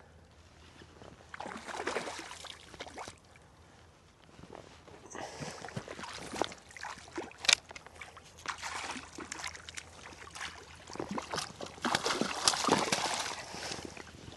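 Water splashing and sloshing in irregular bursts as a hooked trout thrashes at the surface while being played in.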